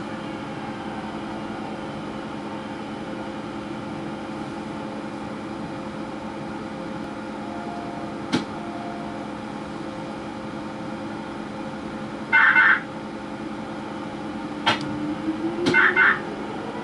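Seoul Line 5 subway train standing in a tunnel: a steady electrical hum with several held tones from its onboard equipment. A sharp click comes about eight seconds in. Near the end there are two short loud bursts of pulsed electronic beeps, a couple of clicks, and a low whine rising in pitch.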